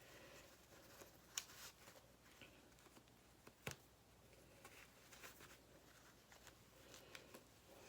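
Near silence: room tone with a few faint, brief clicks and rustles.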